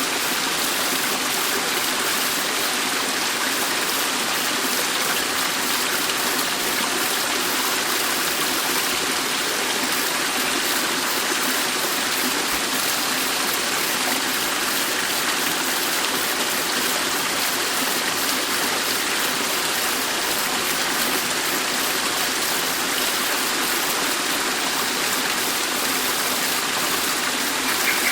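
Dettifoss waterfall: a large volume of falling water rushing steadily, an even, unbroken wash of noise.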